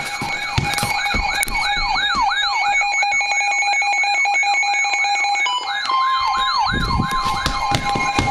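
Electronic siren yelping, its pitch sweeping up and down about three times a second over steady high tones. About six seconds in, a steady alert tone comes in under the sweeps, as on a weather radio alarm.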